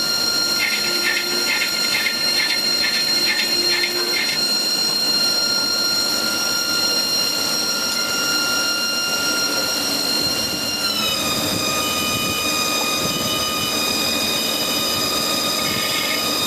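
HAAS TL-3 CNC lathe spindle running, a steady high whine that steps slightly lower in pitch about eleven seconds in as the spindle speed changes. A repeating chirp, about twice a second, sounds over it for the first four seconds.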